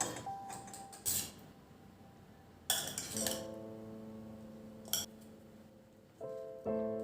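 Several sharp clinks of dishes and utensils being handled. Soft instrumental background music with sustained plucked and keyboard-like chords comes in about three seconds in and swells again near the end.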